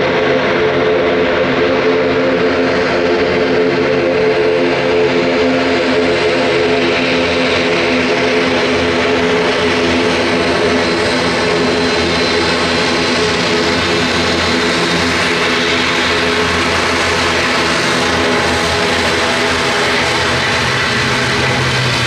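An ATR 72-600's twin Pratt & Whitney PW127 turboprop engines and propellers running while the aircraft taxis: a steady, loud propeller drone with several steady humming tones, joined by a growing hiss in the second half as it passes close.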